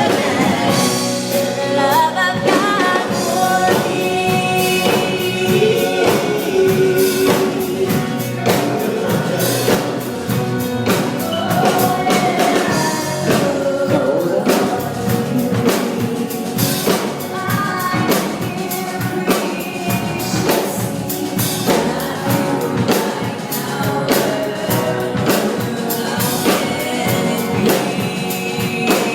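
Gospel vocal group singing in harmony, backed by piano and a drum kit.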